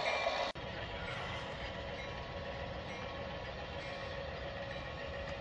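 O scale model diesel train running on the layout: a steady low rumble. About half a second in, a louder, higher engine drone cuts off abruptly.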